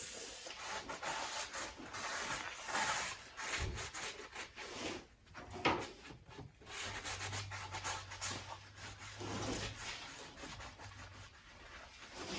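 Alcohol-soaked cloth wiped in irregular back-and-forth strokes over the sandblasted metal of a car body panel, rubbing it clean before paint.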